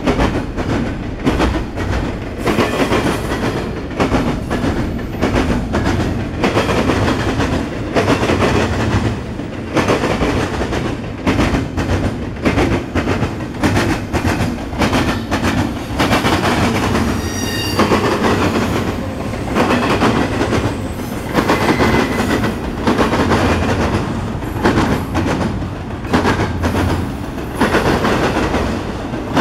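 Double-stack intermodal freight train of container well cars rolling past close by. The wheels clatter repeatedly over rail joints above a steady rumble, and a brief high-pitched wheel squeal comes about halfway through.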